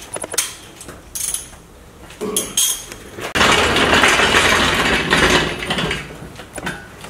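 Metal clinks and knocks from a steel engine stand being handled on concrete, then a loud rough scraping rush for about two and a half seconds as the stand is moved up to the engine hanging from the crane.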